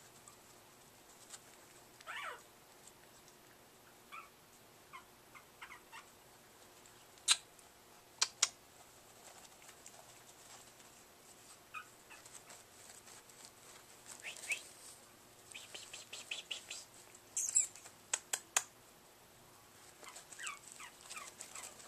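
Two five-week-old Chihuahua puppies play-fighting: short, high yips and squeaks come scattered through, with claws scrabbling on a puppy pad in the middle stretch and a few sharp clicks.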